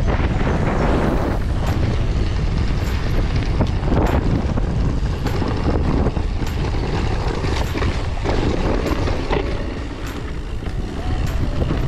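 Wind buffeting the microphone of a camera riding along on a mountain bike, a steady loud rush, with short clicks and rattles from the bike on a rough track.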